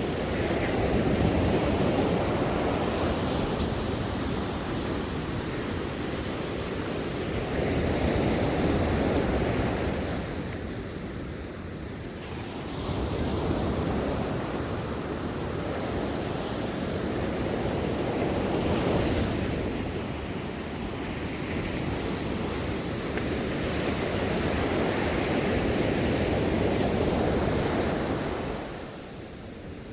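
Ocean waves breaking and washing on a shore, swelling and ebbing every several seconds in a steady rolling surf.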